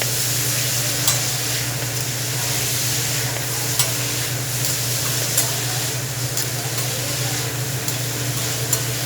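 Food sizzling on a hot grill, a steady frying hiss, with a few sharp clicks of metal utensils against the cooking surface, over a steady low hum.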